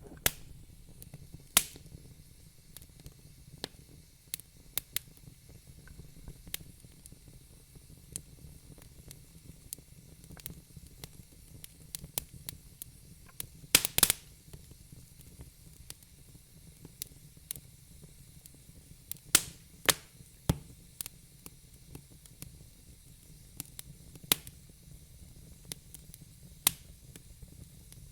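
Wood fire crackling in a fireplace: sharp pops and snaps at irregular intervals over a low steady rush of the flames, with a cluster of the loudest pops about fourteen seconds in.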